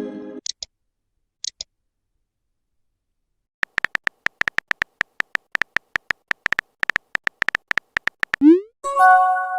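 Chat-app sound effects: after the fading end of a chime and two short high blips, a quick run of phone keyboard typing clicks comes at about six a second for several seconds. Near the end it stops for a short rising pop and a chiming new-message alert.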